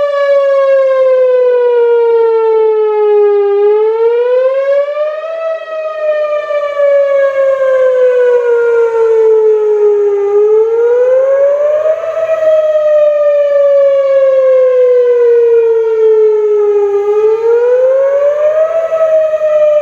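Whelen Vortex R4 rotating electronic outdoor warning siren sounding a loud wail for its monthly test: the pitch slides slowly down for about five seconds, then climbs quickly in about two, three times over.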